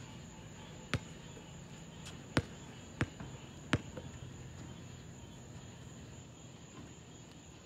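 A basketball bouncing on an asphalt court, four separate bounces in the first four seconds, over a steady high-pitched trilling of insects.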